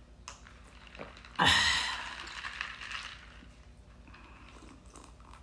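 A sip of iced coffee from a glass mug of ice cubes: a sudden loud slurp about a second and a half in that fades over the next second and a half, with a few faint clicks around it.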